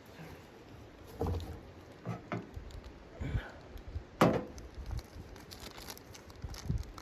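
A series of irregular soft knocks and rustles, like gear or wood being handled. The loudest is a sharp knock about four seconds in.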